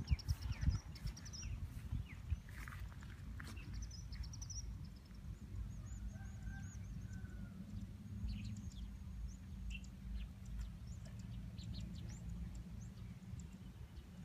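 Birds calling in open country: high, rapid trills and chirps repeat several times, with a few lower calls about halfway through, over a steady low rumble of wind on the microphone.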